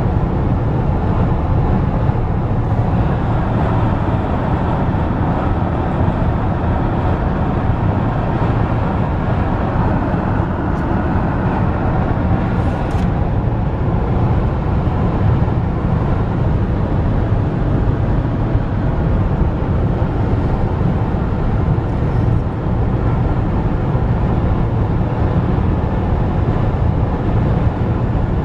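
Steady road noise inside a car's cabin while driving along a highway: a constant low rumble of tyres and engine.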